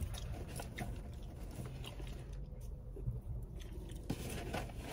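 Popcorn being chewed close to the microphone: a run of small, irregular crunches and clicks over a low steady hum.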